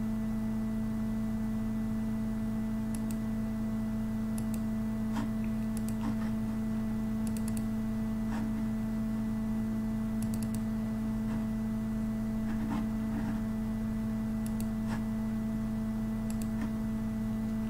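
Steady electrical hum with about a dozen faint computer clicks spread irregularly through it, from a mouse and keys being worked while files and a slideshow are opened.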